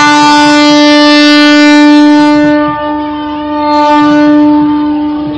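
Train horn sounding one long, steady blast that starts abruptly, sags about three seconds in and swells again.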